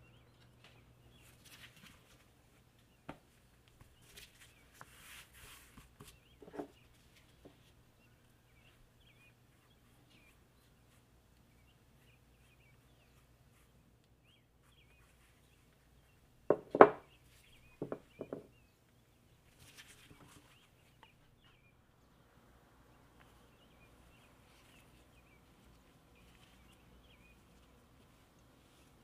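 Faint birdsong of short chirps over a low hum, with soft rustles and a few light knocks early on. A quick cluster of three or four loud thumps comes a little past the middle, from dough and utensils being handled.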